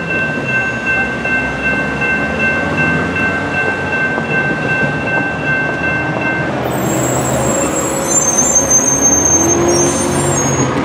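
Electronic railroad-crossing bell ringing steadily over a low rumble, stopping about six and a half seconds in as the crossing gates finish rising. Road traffic then moves across, and a city bus pulls up near the end with high-pitched whining tones.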